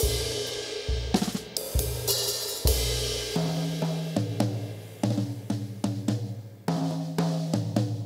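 Jazz drum kit played with sticks: quick strokes across the snare and toms, deep bass-drum hits, and cymbal crashes ringing out near the start and again about two seconds in.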